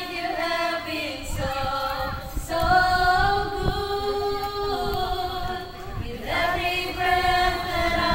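A small group singing together, women's voices leading, amplified through a microphone and loudspeaker. They hold long notes in phrases, with a short break about six seconds in.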